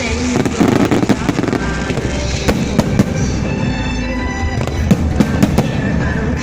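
Fireworks going off, with many sharp bangs and crackles in quick succession, over continuous music.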